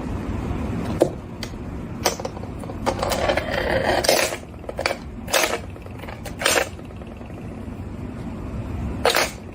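A series of sharp clinks and knocks at irregular intervals, with a cluster around the middle, over a steady low rumble.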